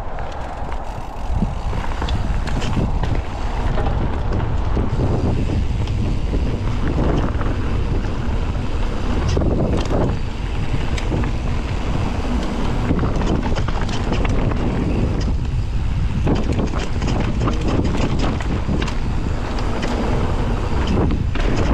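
Wind rushing over the microphone during a mountain bike ride on a dirt trail, with tyre rumble and many short clicks and rattles from the bike over bumps.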